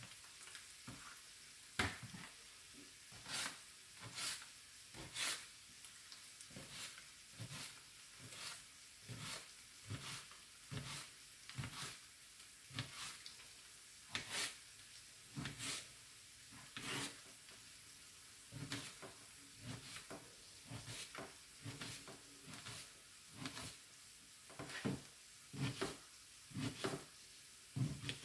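A knife cutting eggplant into cubes on a plastic cutting board: short, sharp knocks of the blade on the board, about one to two a second, unevenly spaced.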